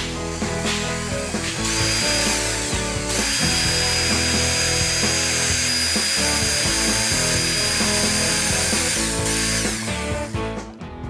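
Cordless drill spinning a small twist bit into wood, its motor whining steadily in a short run about two seconds in and then a long run of about six seconds before it winds down. Background music plays throughout.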